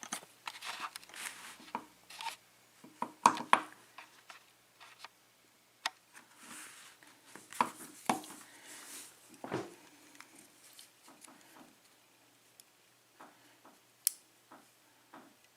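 Scattered light clicks and scrapes of a disassembled pin-tumbler lock cylinder's small metal parts being handled while its top pins are checked.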